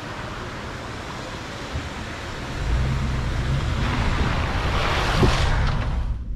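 Water rushing over a creek crossing. About two and a half seconds in, the low rumble of a 4x4's engine joins it, and the water noise swells louder before cutting off suddenly just before the end.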